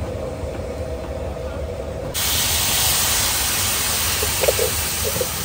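A loud, steady hiss of food cooking on a hot street-stall griddle cuts in sharply about two seconds in, over a low background hum.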